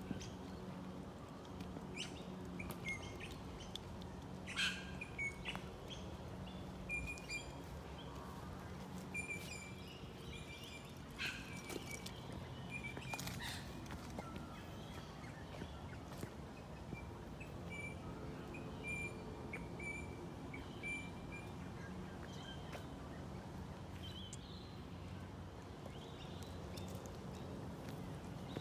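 Small birds chirping in short high notes, repeated on and off, over a steady low background rumble. Footsteps on a dirt path and a few sharp clicks stand out as the loudest moments.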